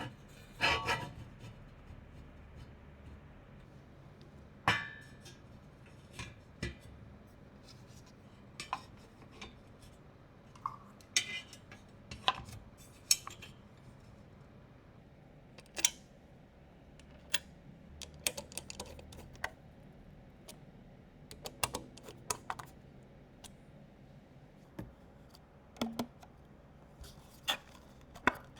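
Irregular clicks, taps and light metallic clinks of computer parts being handled and fitted together by hand, with quiet gaps between them.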